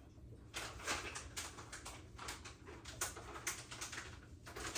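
Crunchy dark-chocolate-coated almonds being chewed close to the microphone: a run of irregular crunching crackles starting about half a second in, over a faint steady room hum.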